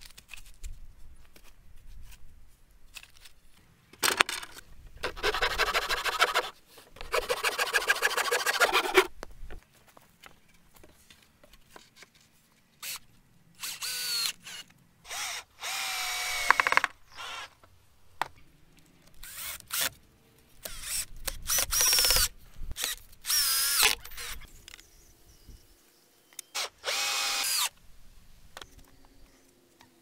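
Cordless drill driving screws into wooden boards. It runs in several separate bursts of one to three seconds, some with a rising whine as the motor speeds up, with short pauses between them.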